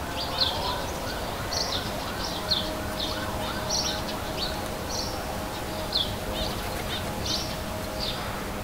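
Birds chirping: short high calls repeating throughout, with a run of lower, evenly repeated rising-and-falling notes over the first few seconds and a faint steady hum underneath.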